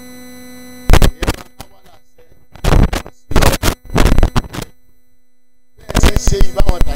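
A public-address system with a steady electrical hum, broken by loud, clipped thumps and bursts. They come in a short cluster about a second in, a longer cluster mid-way, and a dense run near the end.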